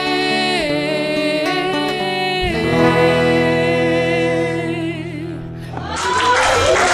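Live song ending: singing over the band, settling into a held final chord about midway that dies away, then audience applause and cheering breaks out about a second before the end.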